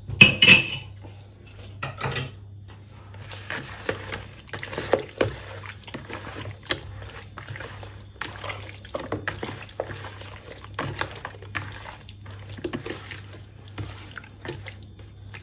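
Wet squelching and slapping as bare hands knead raw chicken pieces in an oily spice marinade, in an irregular stream of short smacks. A sharp clatter sounds right at the start.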